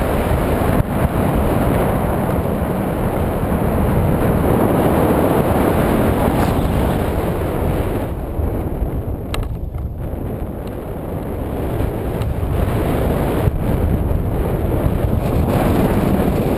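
Airflow buffeting the microphone of a camera carried on a tandem paraglider in flight: a loud, steady rush of wind noise that eases for a few seconds about halfway through.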